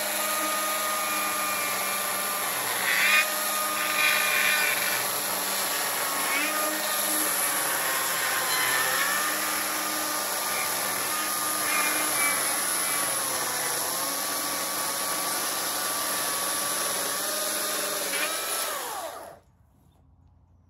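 Stihl battery chainsaw cutting through a log: its whining motor sags in pitch and recovers several times as the chain bites into the wood. The motor cuts off suddenly near the end, with no idle afterwards.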